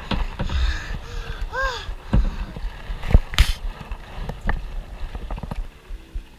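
Kayak paddling: paddle strokes in the water, with irregular sharp knocks of the paddle against the plastic hull. Near the end, faint background music comes in.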